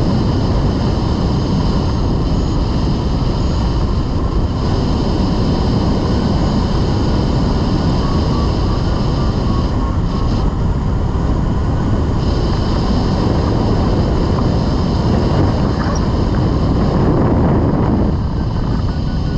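Steady rush of wind buffeting the microphone from the airflow past a rigid-wing hang glider flying at about 30 mph. It eases slightly near the end.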